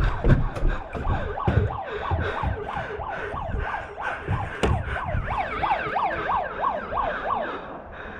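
A siren wailing in fast rising-and-falling sweeps, about three a second, that grow clearer in the second half: the game alarm that the play area is shrinking. Low thumps sound in the first couple of seconds.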